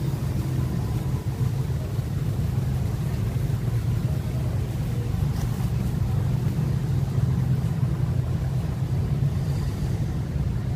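Steady low rumble of city road traffic, with no breaks or sudden sounds.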